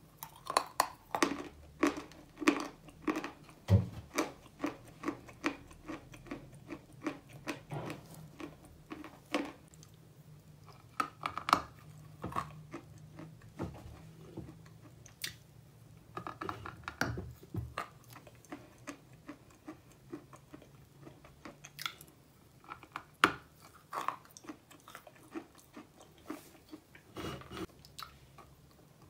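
Chalk being bitten off a large block and chewed: a run of sharp crunches, about two or three a second at first, then sparser, with a few louder bites along the way.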